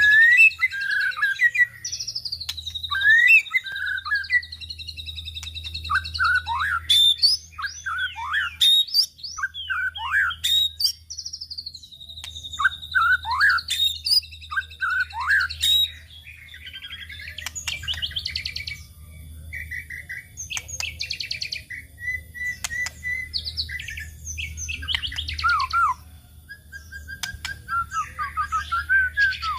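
White-rumped shama (murai batu) song: a varied, continuous run of clear whistles, sweeping pitch glides and rapid trills, over a faint steady low hum.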